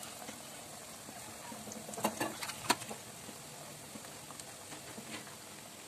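Onion vadas deep frying in hot oil: a steady sizzle, with a few sharper crackles or clicks about two seconds in.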